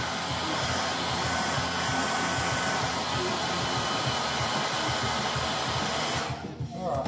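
Handheld hair dryer running steadily, blowing warm air over a freshly primed model locomotive shell to help the paint dry. It cuts off near the end.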